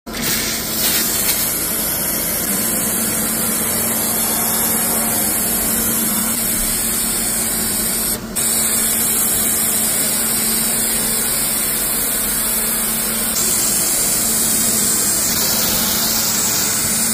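Sprayer wand misting carpet pre-treatment: a steady hiss over a steady hum, broken briefly about eight seconds in when the spray stops and restarts.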